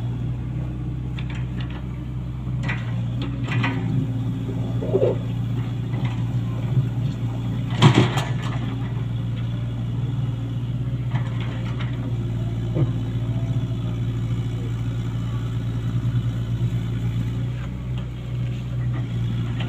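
Komatsu PC75US-3 excavator's diesel engine running steadily, with a few scattered knocks, the loudest about eight seconds in.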